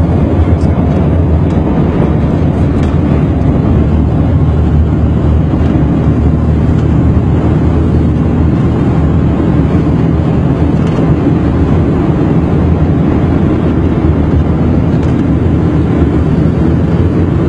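Steady, loud rumble of vehicles driving fast off-road over sand, heard from a moving vehicle: engine and tyre noise that runs without a break.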